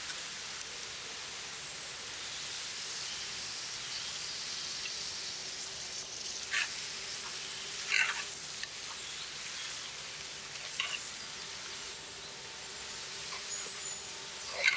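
Raw mutton frying in a pressure cooker pot with tender tamarind leaves, onions and spices, a steady sizzle as it is stirred in. A few sharp knocks of the ladle against the pot, the loudest about eight seconds in.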